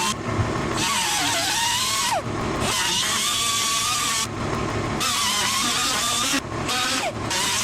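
A high-speed grinding or cut-off tool working the Beetle's sheet metal in repeated runs. Its whine wavers under load and falls away each time the trigger is let go, several times over.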